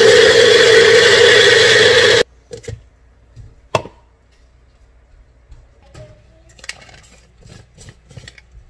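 Magic Bullet blender motor running steadily, grinding fried peanuts with chillies and garlic, and cutting off suddenly about two seconds in. A sharp plastic click follows as the cup comes off the motor base, then light knocks and clicks as the cup is handled and the blade base unscrewed near the end.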